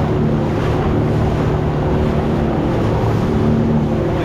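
A motorboat's engine running steadily at cruising speed with a low hum, under rushing wind on the microphone and water noise from the hull.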